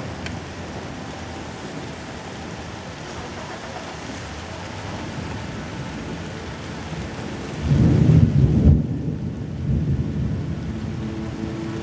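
Steady rain with a loud low rumble of thunder about eight seconds in.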